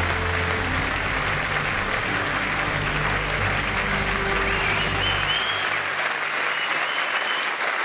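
Large audience applauding, with steady background music underneath that fades out about five and a half seconds in.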